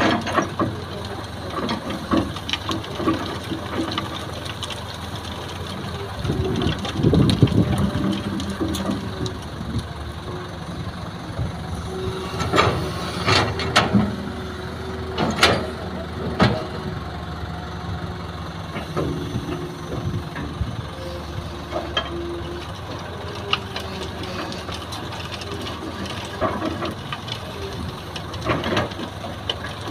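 Hitachi excavator's diesel engine running under working load, with a louder, deeper stretch about six to eight seconds in. Around the middle come several sharp clanks and scrapes of the steel bucket digging into stony sand, and near the end a rattle of sand and gravel dropping onto the dump truck's sieve screen.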